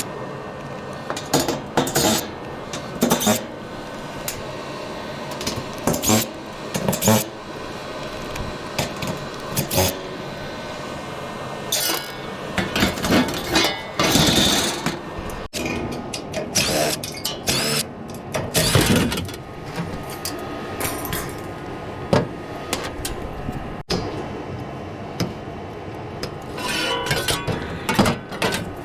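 Scattered metal clanks, knocks and clinks from tools working apart a gas heater's metal casing, at an irregular pace over a steady background noise.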